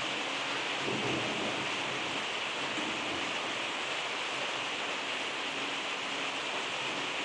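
Heavy thunderstorm rain: a steady hiss of downpour, with a faint low rumble of thunder about a second in and again near three seconds, mostly covered by the rain.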